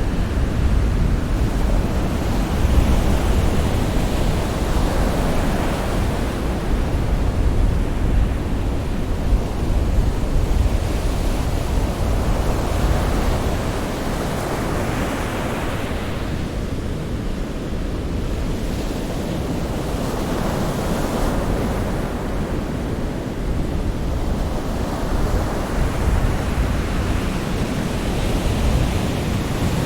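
Sea surf: waves breaking and washing ashore in slow swells every few seconds over a steady deep rumble.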